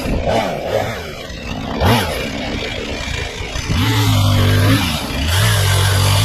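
Chainsaw cutting brush and small stems close to the ground, revved in bursts: a short rev about two seconds in, then two longer held full-throttle runs in the second half.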